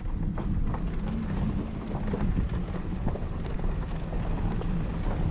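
Vehicle driving slowly on a rough dirt and gravel road, heard from inside the cab: a steady low engine and road rumble with scattered clicks and crunches from stones under the tyres.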